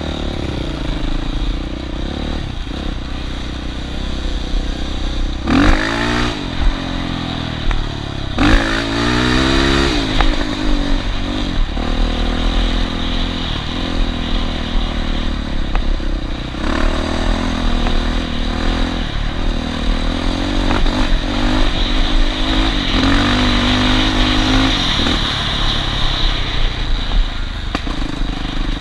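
Small off-road vehicle engine running, revved up and back down sharply twice, about five and eight seconds in, then running on steadily.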